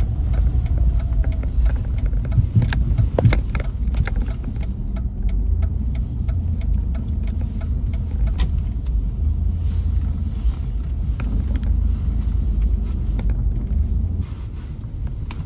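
A car driving: a steady low rumble of engine and road noise, with scattered light clicks and rattles.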